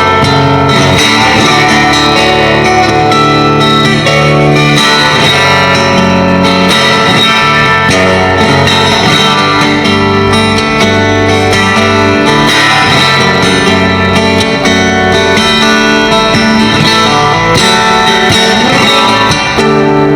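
Solo fingerstyle guitar playing a melodic original piece, picked bass notes ringing under a plucked melody.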